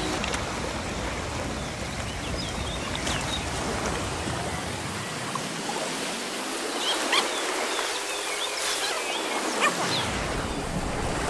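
Seaside ambience: a steady rushing of sea water and wind, with a few short bird chirps.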